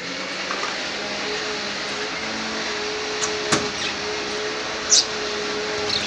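Steady whirring hiss with a low hum, like a running fan or motor, under the room. A single knock about halfway through, and one short high lovebird chirp near the end.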